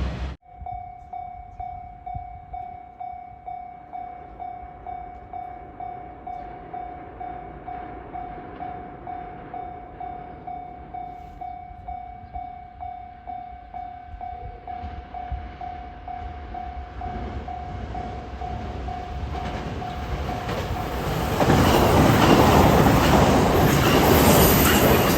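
Japanese railway level-crossing warning bell ringing, an electronic ding about twice a second. A train approaches under it and, about 21 seconds in, passes close by with loud wheel-on-rail noise that covers the bell.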